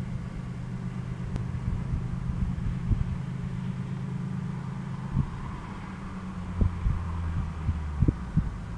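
Low, steady engine rumble whose pitch steps down about five seconds in, with a few short knocks over it.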